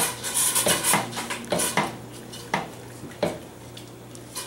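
A wooden spoon stirring hot jello in a stainless steel pot to dissolve the powder, knocking and scraping against the pot's sides and bottom. It makes a run of irregular clicks that thin out in the second half.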